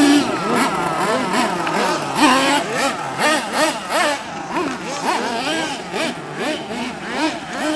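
Radio-controlled monster truck's small engine revving up and down again and again, several rises and falls a second, as it is driven over dirt.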